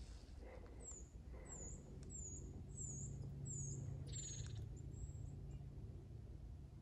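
A small bird calling: about six short, very high, thin notes, each falling in pitch, evenly spaced about two-thirds of a second apart. The calls are faint over a low steady rumble.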